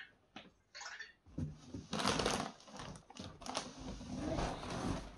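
Rustling and scraping of a large cardboard box being tilted and handled, starting about a second and a half in and going on in uneven bursts.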